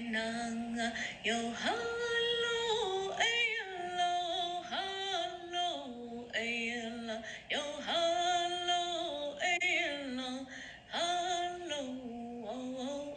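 A woman's voice singing a slow, wordless song on 'oh' syllables, long held notes that slide up and down between pitches.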